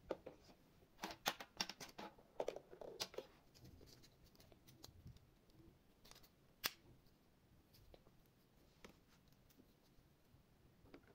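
Faint, scattered clicks and snips of small objects being handled, several close together in the first few seconds, then a single sharper click about six and a half seconds in.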